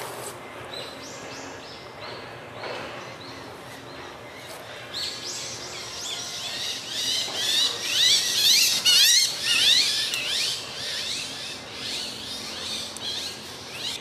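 Japanese sparrowhawk calling: a few high falling notes near the start, then a long run of rapid, high, wavering calls that grows loudest past the middle and eases off toward the end.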